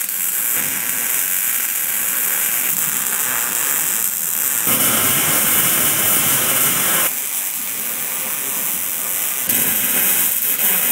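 MIG welding arc crackling and hissing steadily as a roll cage tube is welded, with slight shifts in the sound as the weld goes on.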